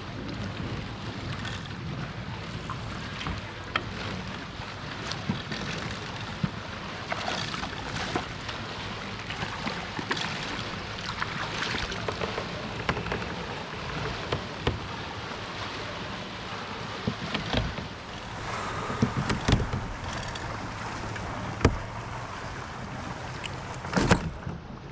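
Water and wind noise around a fishing kayak, with scattered sharp clicks and knocks.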